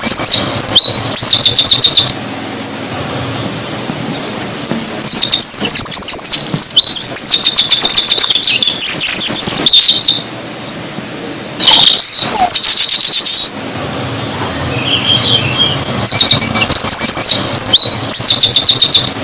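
Songbirds chirping and singing, with many short high calls and rapid trills overlapping. The song comes in loud spells with quieter gaps between them.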